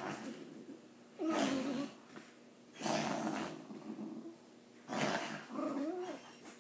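A dog making weird noises: four or five short, breathy, noisy sounds about every second and a half, some with a wavering, whiny pitch.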